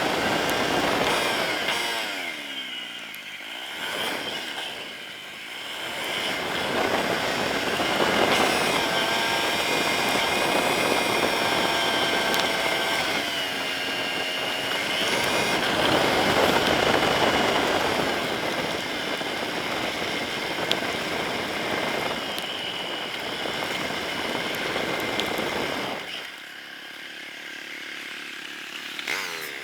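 Yamaha Serow 250's air-cooled single-cylinder four-stroke engine running on the move, its revs rising and falling with the throttle, easing off a few seconds in and again near the end, with wind noise over the engine.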